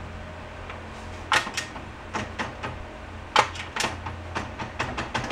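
A run of sharp, irregular clicks and clunks, closer together near the end, from a 1971 Honda CB350's foot gear-shift lever being worked by hand to put the transmission in gear, so the seized engine can be rocked through the rear wheel.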